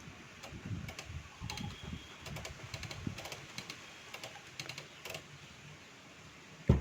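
Light, irregular clicking of a vintage Godrej manual typewriter's levers and keys as its exposed mechanism is handled; the clicks die away about five seconds in.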